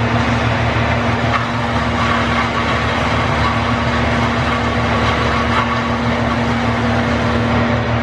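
A heavy engine running steadily at idle, a constant low drone that does not rise or fall, from the tree-removal crew's equipment.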